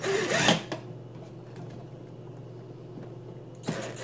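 Cordless drill/driver running in two short bursts, its motor whirring up and down as it backs out the screws under the top of a Keurig 2.0 brewer: one burst right at the start and another near the end. In between, only a faint steady low hum.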